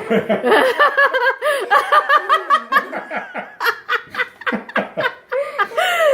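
People laughing hard, a long run of quick, high-pitched laughs.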